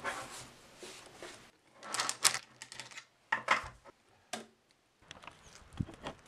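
Light knocks, clicks and rustles of hands handling a book and a ukulele on a wooden desk, broken by two short silent gaps.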